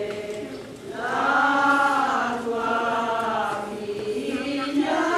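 A group of voices chanting in unison, slow phrases of long held notes, the first starting about a second in and another near the end.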